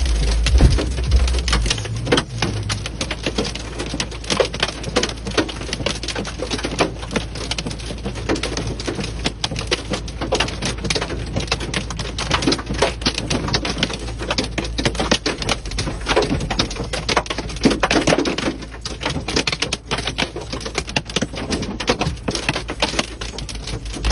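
Hail hitting a car's windshield and roof, heard from inside the cabin: a dense, irregular rattle of hard clicks over a low steady hum.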